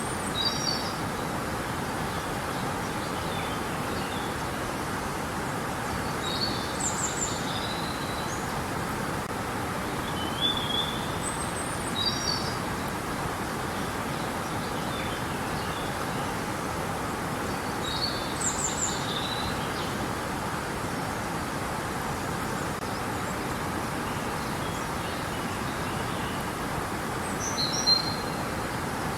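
Steady rushing of river water, with a songbird singing short high chirping phrases every few seconds.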